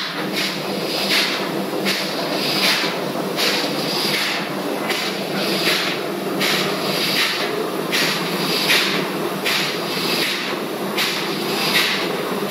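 Steady machinery noise of a ship's engine room, a constant hum under a regular hissing pulse that repeats about three times every two seconds.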